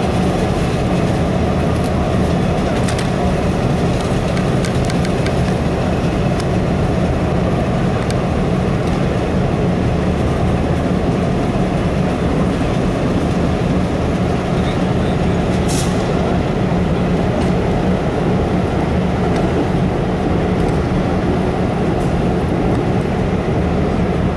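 Steady low rumble of a turntable rotating with the in-steam Norfolk & Western J-class 4-8-4 steam locomotive #611 on it, with a few light clicks and one sharper tick about two-thirds of the way through.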